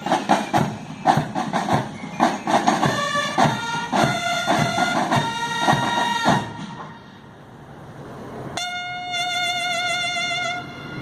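Marching band playing: brass notes over sharp, regular drum strikes, breaking off about six and a half seconds in. After a quieter couple of seconds, the brass comes back in on one long held note with a slight waver.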